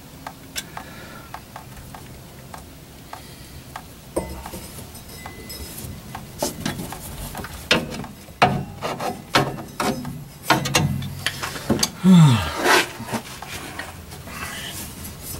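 Hands working a rubber fuel line, hose clamps and tools: scattered clicks, knocks and rubbing, busiest in the second half. A short falling tone comes about twelve seconds in.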